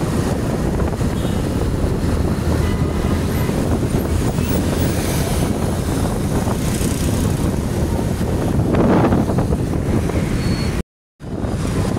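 Road traffic noise heard from a moving vehicle, with wind rumbling on the microphone; something louder passes about nine seconds in, and the sound cuts out for a moment near the end.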